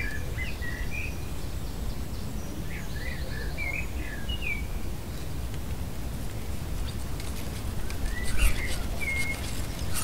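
Wind blowing with a steady low rumble, while small birds chirp in short calls near the start, in the middle and again near the end. A few light clicks sound in the last few seconds.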